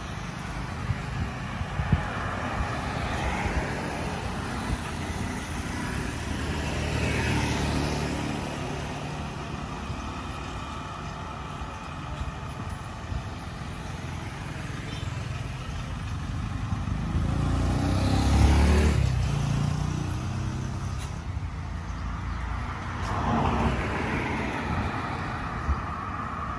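Road traffic: a steady rumble with several vehicles passing one after another, each swelling and fading, the loudest about two thirds of the way through.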